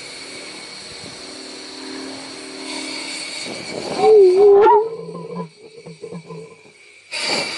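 Steady hiss of start air and propane through a 3D-printed plastic pulsejet. About four seconds in the jet briefly howls with a loud wavering tone, then sputters with a few short low pulses, and the hiss resumes near the end. It is a failed start attempt, which the builder puts down to too much fuel.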